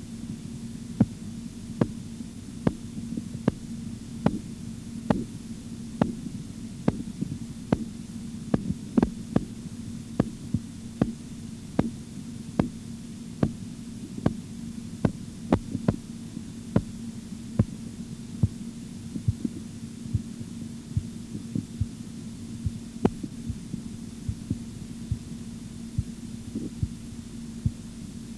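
Korotkoff sounds heard through a stethoscope as a blood pressure cuff deflates: sharp taps a little over once a second over a steady low hum. The taps appear about a second in, then grow fainter and die away after about twenty seconds. The first tap marks the systolic pressure and their fading out the diastolic.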